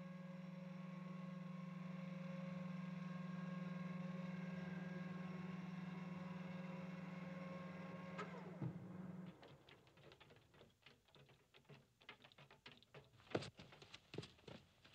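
Electronic hum of a landing flying saucer, a steady low drone with thin tones above it, which falls in pitch about eight and a half seconds in as the craft settles and then cuts off. Quick sharp clicks and taps follow, footsteps on a metal stairway.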